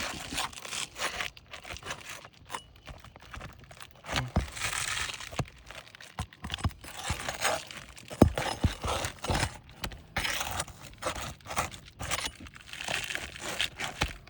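Brittle asphalt shingles being worked with a roof snake nail-removal bar: irregular scraping, crunching and tearing, broken by sharp knocks, the loudest about eight seconds in. The tearing is the shingles ripping as their nails pull through them.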